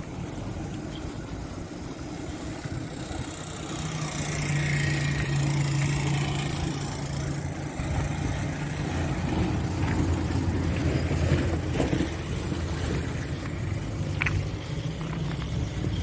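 A motor vehicle's engine runs steadily, growing louder about four seconds in and settling to a lower hum from about eight seconds in.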